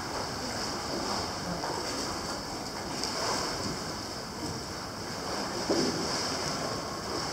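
Indoor swimming pool ambience: a steady wash of water lapping and moving in the pool, with one short bump about six seconds in.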